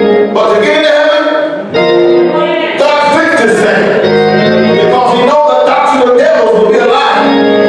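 Gospel church music: organ and keyboard chords with a voice singing over them.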